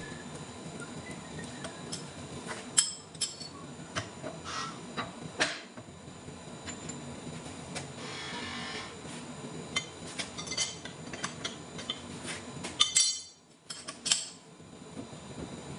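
Irregular metal clinks and clicks of a T-handle wrench working the jaws on a large lathe faceplate, over a steady low workshop hum.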